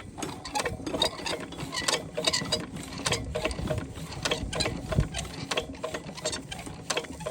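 Irregular metallic clicking and clattering of a mechanism, with one heavier knock about five seconds in.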